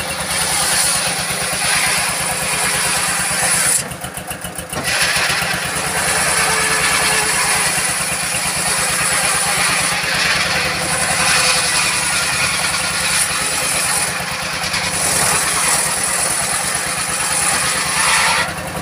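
Old diesel engine driving a circular saw bench, running with a fast, steady beat while the blade rips a teak log lengthwise. The cutting noise drops away for about a second, roughly four seconds in, leaving mostly the engine, then comes back.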